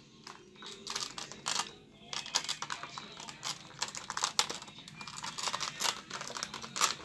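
Clear plastic blister packaging crackling and clicking in quick, irregular snaps as it is slid out of its cardboard box and handled. It is sparse for the first second or so, then busier.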